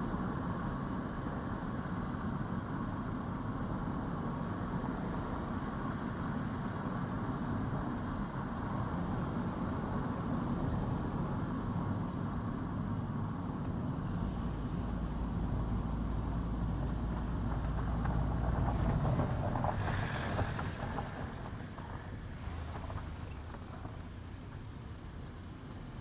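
A car driving along a road: steady tyre and engine noise with a low rumble. It eases off and gets quieter about two-thirds of the way through.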